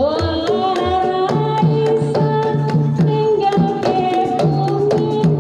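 A sinden, a female Javanese singer, sings a Banyumasan tayub gending into a microphone. She glides up at the start into a long held note. Gamelan accompanies her, with quick hand-drum strokes and a repeating pattern on struck bronze pot gongs.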